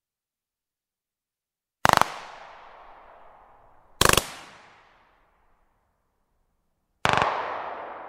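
Three single shots from a 9 mm CZ 75 semi-automatic pistol, about two and three seconds apart, each followed by a ringing echo tail that dies away; the last tail is the longest.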